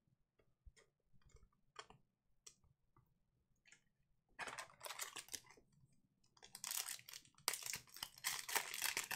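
Foil wrapper of a Panini Prizm Premier League Breakaway card pack crinkling as it is handled and torn open, after a few light clicks. The crinkling comes in two rustling spells, the second longer and louder.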